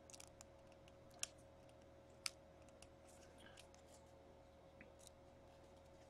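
Near silence with faint clicks and ticks of a stack of trading cards being handled and flipped through by hand. Two sharper snaps come about a second and two seconds in, over a faint steady hum.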